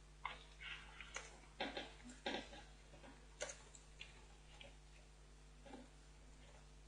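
Faint, irregularly spaced clicks of a computer mouse and keyboard, most in the first few seconds, over a steady low electrical hum.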